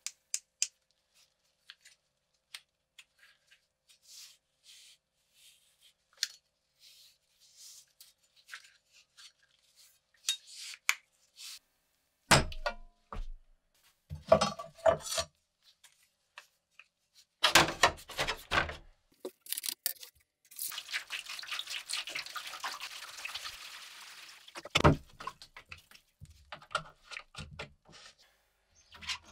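Handling noises and several clunks as a rusty sickle blade is set into a plastic trough, then liquid rust remover poured in from a jug for about four seconds, a steady splashing wash, followed by another knock.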